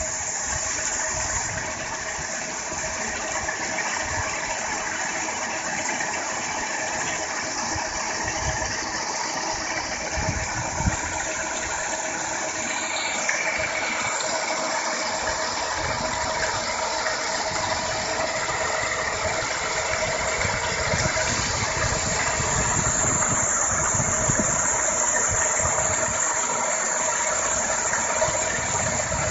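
Paddle aerator (model HX-1.5, 1.5 kW electric motor) running in a river, its four paddle wheels churning and splashing the water steadily, with a steady motor hum underneath.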